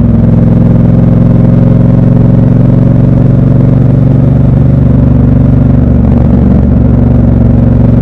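Triumph Bobber's 1200 cc parallel-twin engine running steadily as the motorcycle rides along at a constant speed, its exhaust a low, even drone, with a brief waver in the note about six seconds in.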